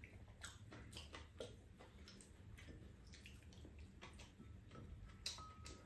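Faint, scattered clicks of a spoon and chopsticks against ceramic bowls during a meal, a little louder near the end.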